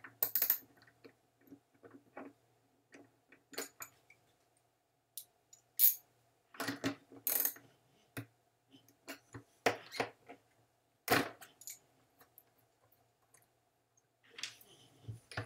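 Scattered light clicks and clinks of small hard objects being handled, irregularly spaced, a few with a bright metallic ring, over a faint steady hum.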